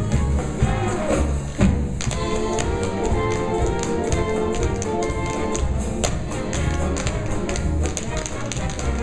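Tap dancing: quick runs of tap-shoe strikes on a stage floor over the show's band accompaniment.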